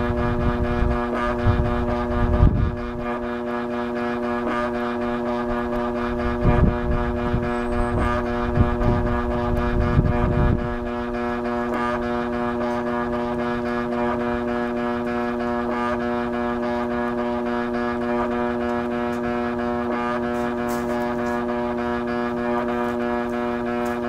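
Eureka Edge Kleener upright vacuum cleaner's motor running flat out with a steady droning hum, while it overheats and smokes from its motor housing. Bursts of low rumble come and go during the first ten seconds.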